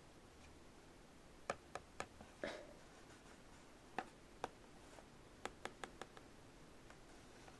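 Small plastic toy pieces being handled, giving about ten light clicks and taps in scattered groups, with a slightly longer knock in the middle of one group.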